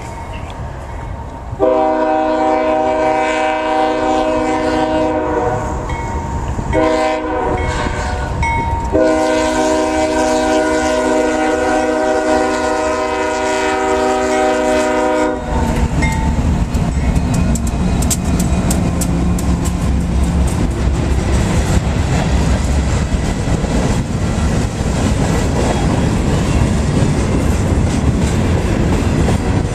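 A CSX diesel freight locomotive sounds its multi-chime air horn in three blasts, the last the longest. It then passes close by with a loud low engine rumble, followed by covered hopper cars rolling past with steady wheel clatter over the rail joints.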